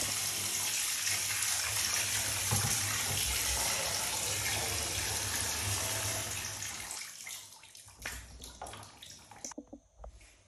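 Handheld shower head spraying water into a partly filled bathtub, a steady rush that starts abruptly. About seven seconds in the spray dies away, leaving a few light knocks and splashes.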